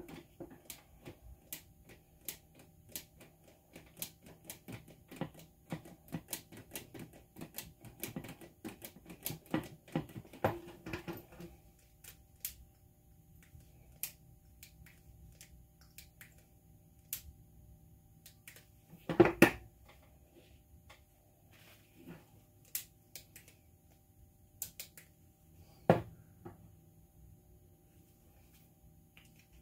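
Lever-action grease gun being pumped on a grease fitting, with its metal parts clicking and clacking: a quick, irregular run of clicks for about twelve seconds, then scattered clicks. Two louder thumps come past the middle and near the end.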